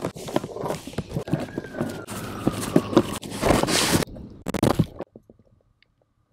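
Knocks, clicks and rustling of belongings being handled and pulled out of a car's interior. The sound cuts off about five seconds in.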